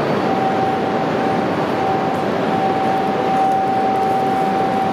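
A steady, high electronic tone, the platform's departure buzzer signalling the train's departure, starts about a quarter second in and holds at one pitch. Under it runs the hubbub of a crowded station platform.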